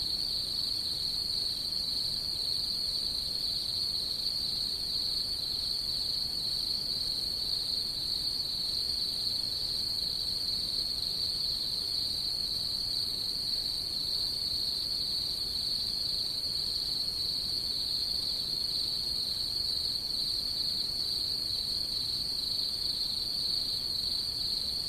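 Night insects calling in a steady, unbroken high-pitched trill.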